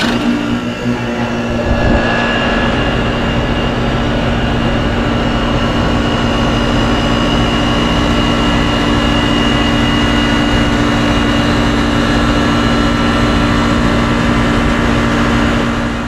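2006 Trane XB10 central air conditioner's outdoor unit starting up: the compressor comes on suddenly with a steady hum, the sound grows over the first two seconds as the condenser fan comes up, then the unit runs steadily.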